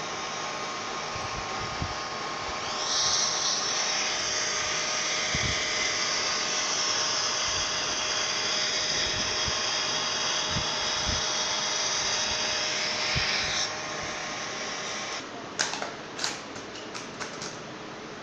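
Toy hair dryer running with a steady whir, louder from about three seconds in until about fourteen, then switched off. A few sharp clicks and knocks follow near the end.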